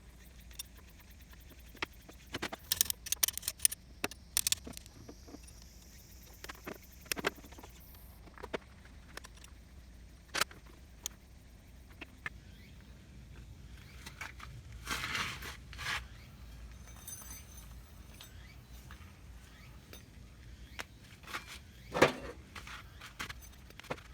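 Irregular metallic clinks and clicks of hand tools and parts being handled, with a short scraping stretch about 15 seconds in and a sharper knock near the end.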